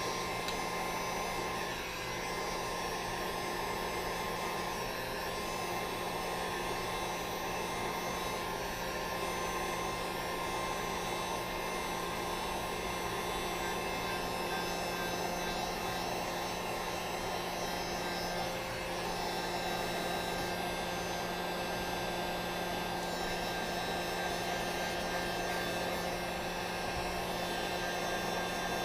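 Hot-air blower running steadily with a constant hum, warming a sticker's adhesive to loosen it for peeling.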